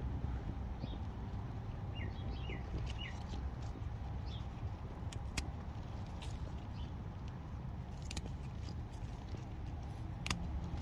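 Steady low outdoor rumble with three short, falling bird chirps about two seconds in. A few sharp clicks come later, as broad bean shoots are pinched off by a gloved hand.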